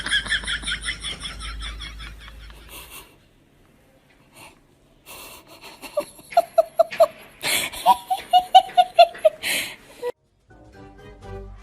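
Laughter in quick rhythmic bursts: a high-pitched giggling run, then after a pause two runs of short 'ha-ha' pulses. Music comes in near the end.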